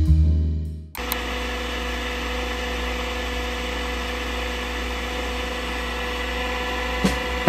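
Nespresso capsule coffee machine brewing: a steady motor whir with a low hum as coffee pours into a mug, stopping shortly before the end.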